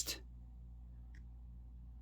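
Quiet room tone: a low steady hum, with one faint, very short high blip about a second in.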